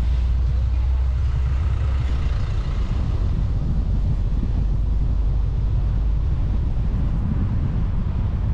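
A car driving along a road: a steady low rumble of engine, tyre and wind noise.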